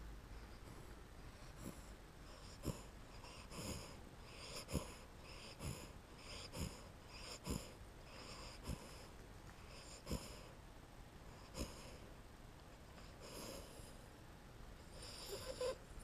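A sleeping American Staffordshire Terrier puppy's faint wheezy breaths through its nose, repeating about once a second, with a quick cluster of them near the end.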